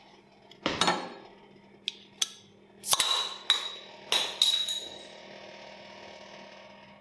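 Glass beer bottle clinked in a 'cheers' toast: a run of sharp knocks and clinks, the later ones leaving a high glassy ringing note that fades away.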